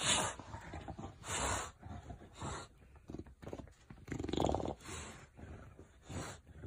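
A bulldog digging and burrowing into fleece blankets, heard as short noisy bursts of rustling and breath about once a second.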